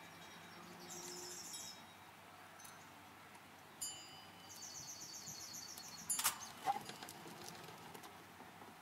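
Steel parts of a small home-built milling machine carriage being handled: a ringing metallic clink about four seconds in, then two sharp knocks a little after six seconds, the loudest sounds.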